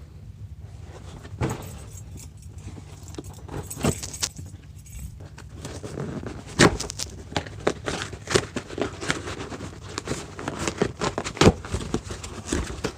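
A mail package being opened by hand: rustling and crinkling of packing material with scattered clicks and knocks, busier in the second half, over a steady low hum.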